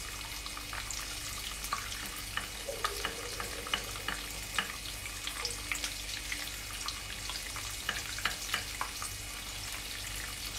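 Crumbed fish pieces shallow-frying in hot oil: a steady sizzle broken by many irregular sharp crackles and pops, as a slotted spoon ladles hot oil over their tops.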